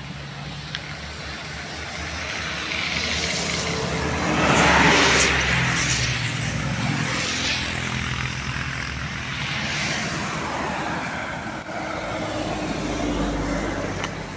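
Motor vehicles passing on a highway. Engine hum and tyre noise swell to a peak about five seconds in and fade away, and another vehicle approaches near the end.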